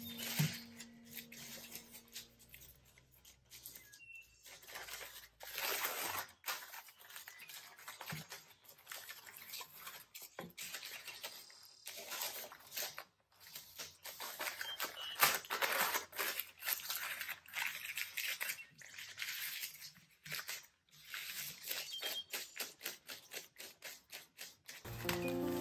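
Sheets of baking paper rustling and crinkling in irregular bursts as they are handled, folded and wrapped around a glass jar.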